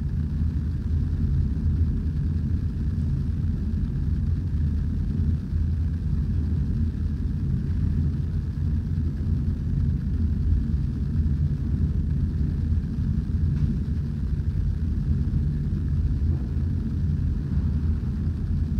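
Steady low rumble of background noise, unbroken and fairly loud, with no other sound standing out.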